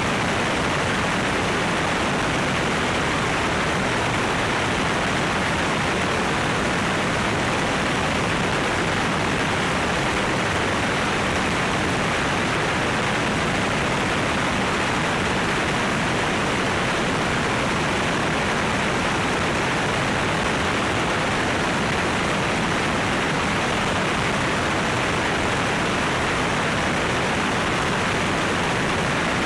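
Steady, even rush of airflow over a camera mounted outside a light airplane in cruise at about 160 knots.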